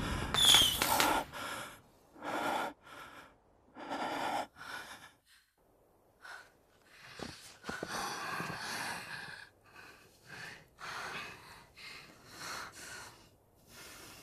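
People breathing hard and gasping, in separate heavy breaths with short pauses between them. In the first second, the crackle and whistles of fireworks die away.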